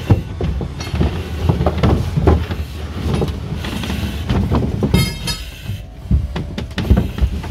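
Irregular thuds and scraping as a firefighter in breathing apparatus crawls through a narrow plywood passage, his gear knocking against the boards, over a steady low rumble. A brief high squeak about five seconds in.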